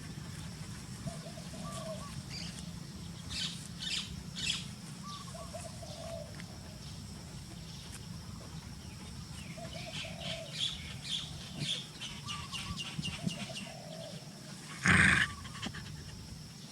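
A dove cooing over and over every few seconds, with bursts of small bird chirps in between. Near the end comes one short, loud noise.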